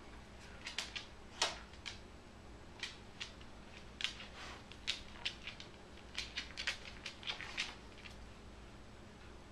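A corgi's claws clicking on a hardwood floor as it steps about: irregular clusters of short, sharp ticks.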